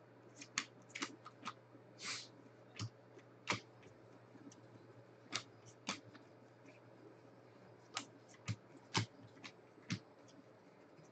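Baseball trading cards being flipped through by hand, each card snapping off the stack: irregular sharp clicks, with a softer sliding swish about two seconds in. A steady low hum runs underneath.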